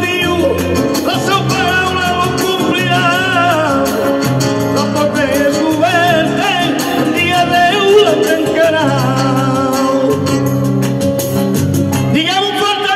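A man singing with wavering, drawn-out notes into a microphone over a rhythmic accompaniment of steady low notes and evenly spaced strokes, amplified through a PA speaker.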